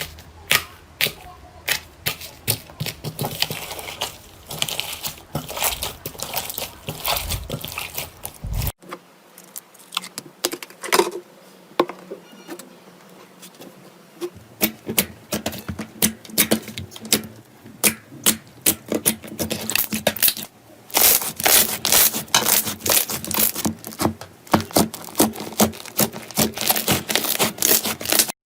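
Slime being squeezed, stretched and pressed by hand, giving dense crackling, popping and clicking, with tearing sounds as it pulls apart. The sound shifts twice as one clip gives way to another.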